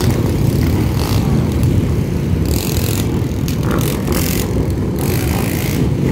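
Many dirt bikes, quad ATVs and motorcycles running together as a steady mass of low engine noise, with some riding slowly past.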